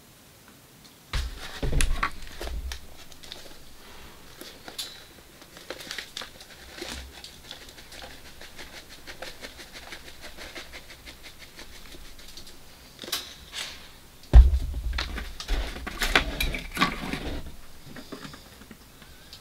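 Food-prep handling at a wooden camp table: a cardboard box of pancake mix handled and the dry mix poured into a bowl, with light rustling and clicking throughout. There are sudden knocks about a second in and again about fourteen seconds in; the second is the loudest.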